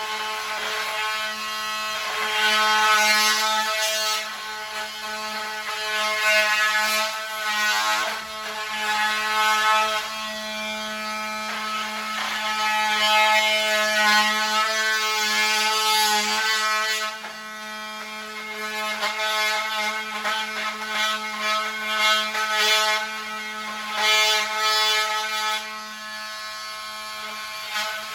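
Electric drill running in long runs, its motor whining steadily while the bit grinds in surges against something hard inside the wall, which is taken for metal.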